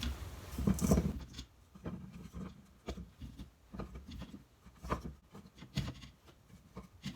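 Pieces of raw pumpkin being set one at a time into a pot: a string of soft, irregular knocks, a few of them louder near the end.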